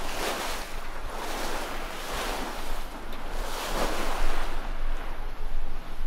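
Sea rushing and splashing along the hull of a sailing yacht heeled under sail at about 6 knots, swelling in repeated surges. Wind buffets the microphone with a low rumble.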